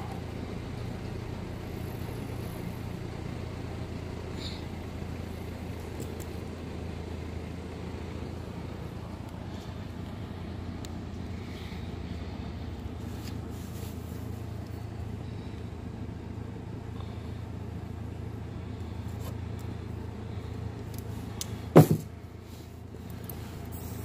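Steady low mechanical hum, with a few faint handling clicks and one sharp snap about 22 seconds in, which is the loudest sound.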